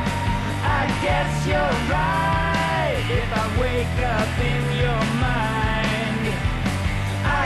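Rock music with a sung vocal line over a steady bass and drum beat.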